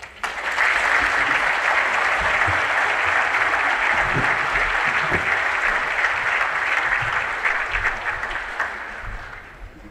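Audience applauding, starting just after the start and fading away near the end.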